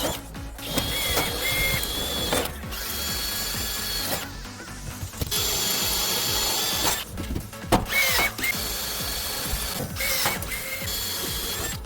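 A power tool running in repeated stretches of one to two seconds with short stops between, giving a steady mechanical whine.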